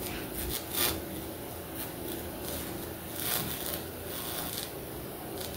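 Electrical arcing between wrinkled aluminium-foil electrodes and bread dough in a homemade electric (ohmic) bread oven: a steady crackling hiss with a few sharper flare-ups. The arcs are vaporising the foil and leaving aluminium deposits on the bread.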